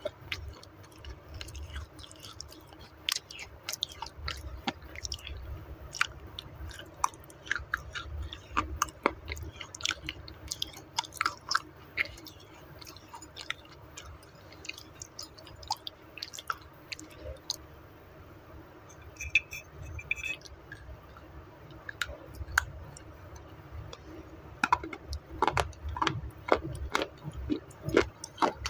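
Baked clay roti being chewed right at a clip-on microphone: a steady run of sharp, irregular crunches and crackles as the dry clay breaks up between the teeth, with wet mouth sounds under them.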